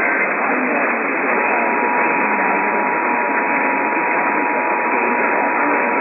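Weak radio reception full of static hiss, carrying an Emergency Alert System test: the last of the warbling digital header tones ends at the very start, and about a second in the steady two-tone EAS attention signal begins, faint under the static.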